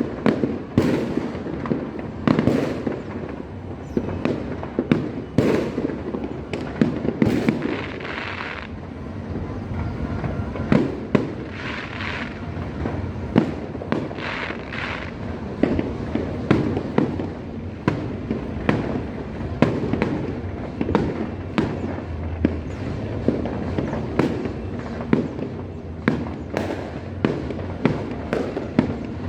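Fireworks and firecrackers going off continuously on all sides, many sharp bangs and pops in quick succession over a steady rumble of distant explosions, with some crackling.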